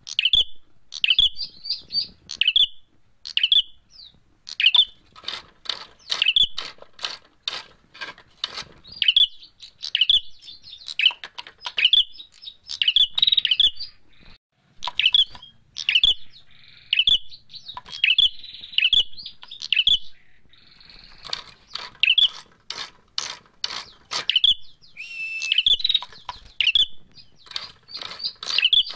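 Prenjak merah calling excitedly in a fighting mood: rapid sharp chirps and dry clicking notes repeated in quick bursts, with short pauses between them.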